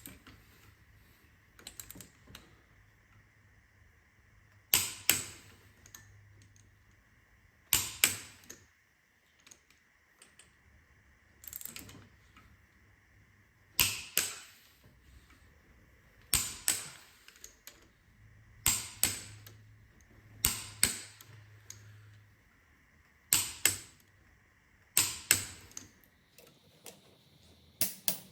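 Click-type torque wrench clicking as it reaches its set torque on cylinder head bolts, one bolt after another in the tightening sequence. There is a sharp click every two to three seconds, often two in quick succession.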